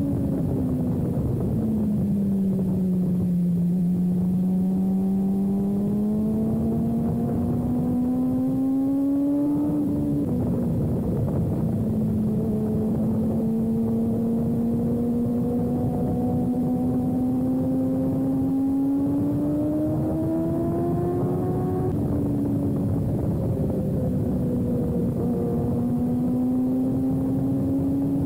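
Sport motorcycle engine running hard around a track, with wind noise. Its pitch climbs slowly and drops back abruptly twice, about ten seconds in and again about twenty-two seconds in.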